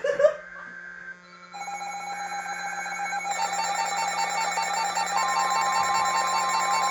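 Weather radio emergency alert tone: a steady electronic tone that starts about one and a half seconds in and grows louder, with a second, higher tone joining around the middle. It signals that an alert message is about to follow.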